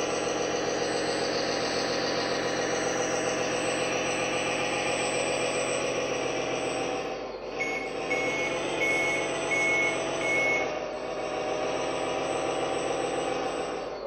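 RC truck's multifunction sound unit playing a simulated diesel truck engine through its small speaker, running steadily. A little past halfway the engine sound dips briefly, then a run of about five evenly spaced reversing beeps sounds over it.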